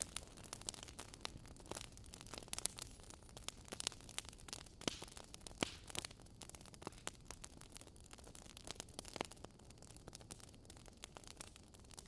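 Wood fire crackling in a fireplace: irregular sharp pops and snaps, some louder than others, over a faint low rumble.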